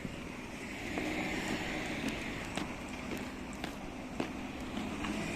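Footsteps, about two a second, each a sharp crunch or click, over a steady low mechanical hum in the background.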